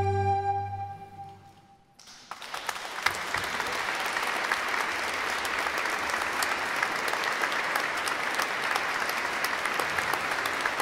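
The final held chord of a choir and string orchestra fades away in the church's reverberation, then audience applause breaks out about two seconds in and continues steadily.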